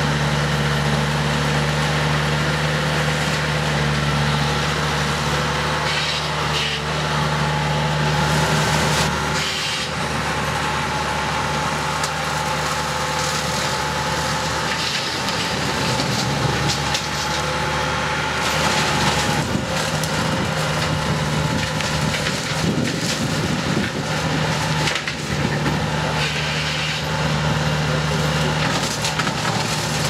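Bobcat T300 compact track loader's diesel engine running under load while the Skid Pro skid-steer brush cutter's spinning flywheel blades shred brush and saplings. Repeated bursts of wood being chewed up sound over the steady engine hum, which sags briefly a few times as the cutter bites into heavier growth.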